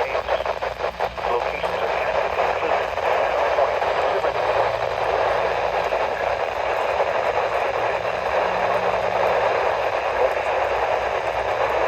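Radio static: a steady hiss from a radio receiver between transmissions, with no voice or alert tones.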